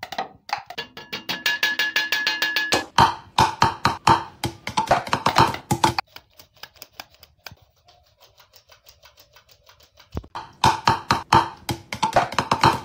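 Percussive background music built on a quick run of sharp knocks with a few held notes. Midway it thins to faint, regular ticking for about four seconds, then the knocks pick up again.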